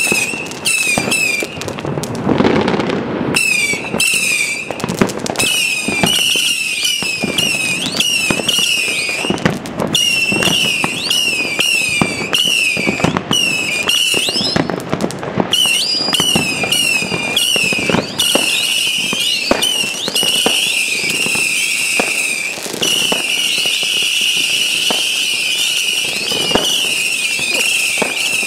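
Helios Feuerwerk 'Screaming Grizzly' 300-shot whistling fireworks cake firing in rapid succession: each shot gives a high, screaming whistle as it climbs, with many whistles overlapping and sharp launch pops and cracks throughout. Over roughly the last five seconds the whistles run together into one continuous shriek.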